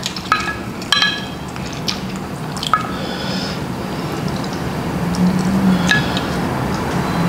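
Chopsticks stirring and lifting noodles in sauce inside a glass food container, with wet squishing. The sticks tap against the glass several times, each tap with a brief ring.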